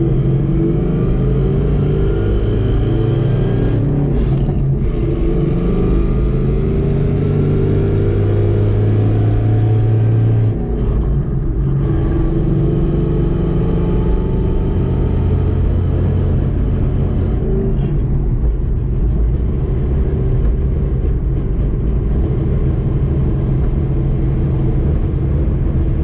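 Inside the cabin of a Ford Mustang under way, its V8 engine and Calimer Stage 3 MT82 six-speed manual transmission running steadily. This is the trans noise and vibration typical of a Calimer Stage 3 still breaking in. The engine note changes abruptly about ten seconds in, then runs steady again.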